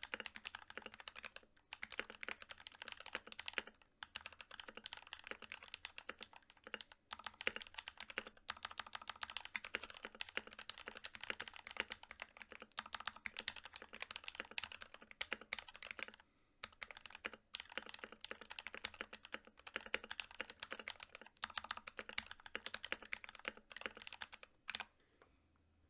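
Fast continuous typing on an NK65 Milkshake mechanical keyboard: prelubed NK Silk Yellow linear switches under PBT Cherry-profile keycaps, in a polycarbonate case with an aluminium plate and band-aid modded stabilizers. A steady clatter of keystrokes with brief pauses every few seconds, ending near the close.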